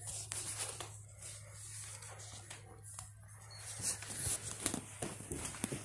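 Phone handling noise: rustling and a few short knocks as it is moved, thickening in the second half, over a steady low hum.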